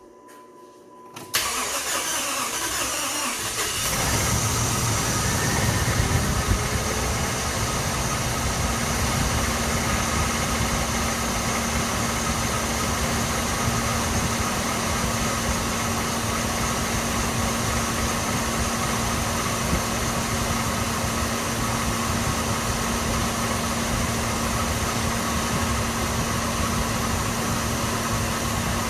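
2006 Dodge Ram's gasoline engine cranking on the starter, catching about four seconds in and settling into a steady idle. This is its first start after a timing chain replacement and weeks of sitting, and the owner calls it a little sluggish.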